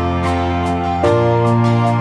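Gentle instrumental background music with a steady light beat; the chord changes about a second in.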